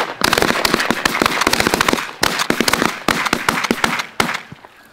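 A rapid barrage of shotgun fire from several hunters shooting at once, with many overlapping shots that die away about four seconds in.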